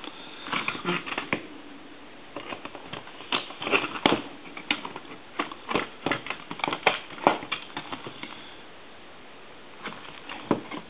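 Irregular small clicks, taps and rattles of a disassembled Trimline telephone and its main circuit board being handled, with a lull near the end.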